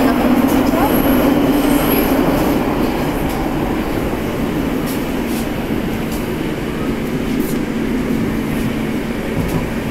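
Moscow Metro 81-765/766/767 train running between stations, heard from inside the car: a steady rumble of wheels on rail with a low hum. There are scattered clicks and a few faint high squeals near the start, and the noise eases a little after about three seconds.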